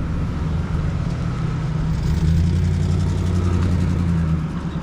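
A motor vehicle's engine running close by, a low steady hum that grows louder about two seconds in and drops away near the end as the vehicle passes.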